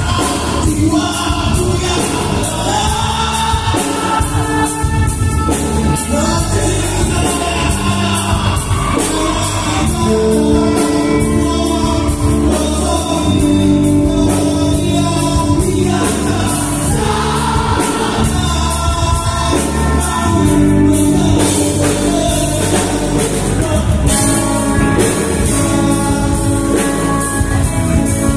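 Live band playing loud amplified music, with singing over electric guitar and drums.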